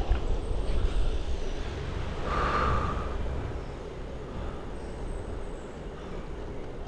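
Wind rushing over the camera microphone with road noise from a bicycle riding downhill on a wet road, gradually easing off. A brief higher-pitched hiss comes about two and a half seconds in.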